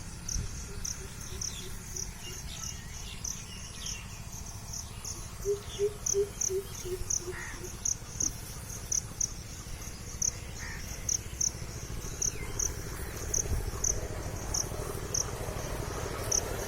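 Cricket chirping steadily in short high chirps, about three a second, with two brief runs of low, rapidly repeated notes, one near the start and one about six seconds in.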